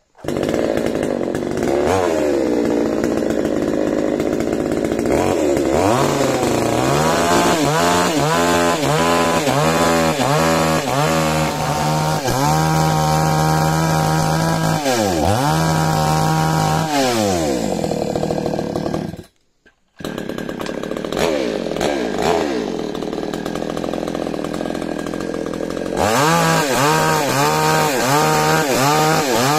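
Chainsaw running at high revs while cutting wood, its pitch dipping and recovering again and again under load. About two-thirds through it breaks off for a moment, comes back at lower revs, and climbs back to full speed near the end.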